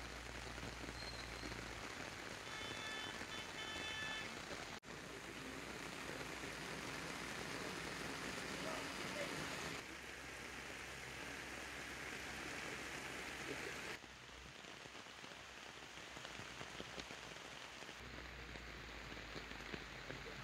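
Steady rain falling on the ground and foliage, an even hiss whose level shifts abruptly every few seconds.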